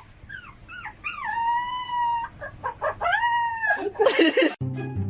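Dog howling: a few short yips, then two long, high howls, each rising at the start and then held. About four seconds in comes a short burst of noise, then music starts.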